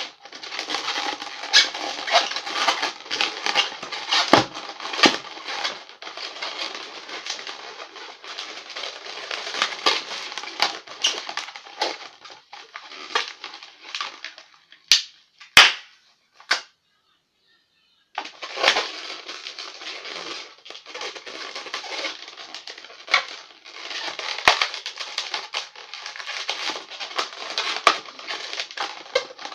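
Latex modelling balloons being twisted and squeezed by hand: a dense, crackly run of rubbing and squeaking with sharp clicks. Just past the middle the sound drops out completely for about a second before the rubbing resumes.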